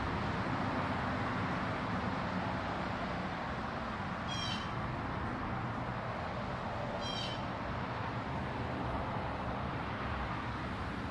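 Steady outdoor background noise with a low hum, broken twice by a short, high, descending bird chirp, about four and seven seconds in.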